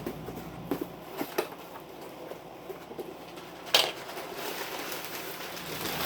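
Hands opening a shipping package: rustling packaging with scattered small clicks, and one sharp tearing rip nearly four seconds in, followed by steady rustling.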